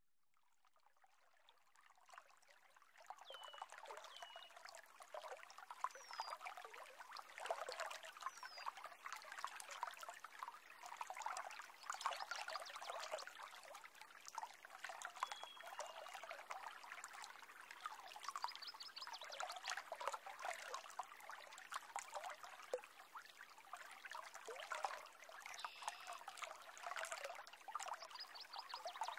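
Faint trickling, splashing water that fades in over the first few seconds, with a few short high chirps scattered through it.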